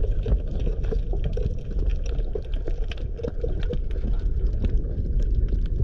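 Underwater ambience heard through a waterproof camera housing: a muffled low rumble of moving water with bubbling and scattered sharp clicks.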